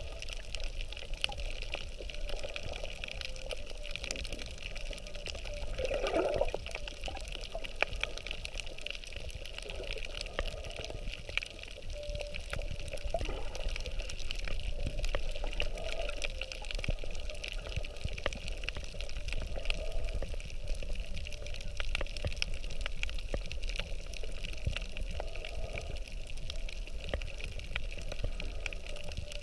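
Underwater sound picked up by a GoPro in its waterproof housing: a muffled, steady water wash shot through with many small sharp clicks, and a brief louder swell about six seconds in.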